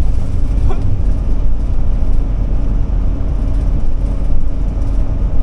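Steady road and engine rumble of a 2007 Forester Class C motorhome on a Ford E-450 chassis cruising at highway speed, with a steady low hum.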